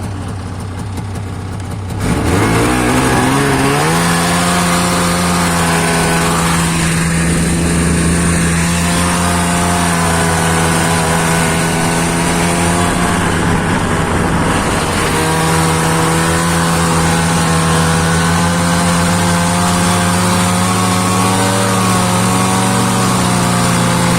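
Snowmobile engine revs up about two seconds in as it pulls away, then runs steadily at high revs, with a brief dip near the middle.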